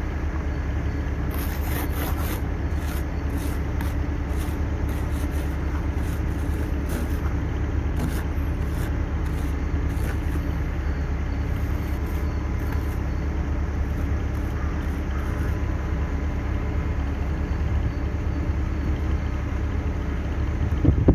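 Car engine idling steadily while it warms up in cold, snowy weather.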